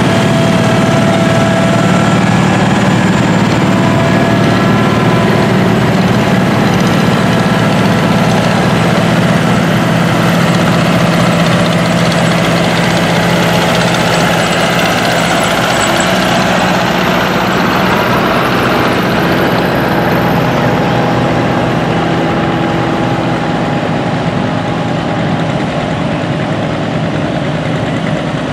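Tractor engines running at low speed as several tractors drive slowly past one after another, making a steady engine sound.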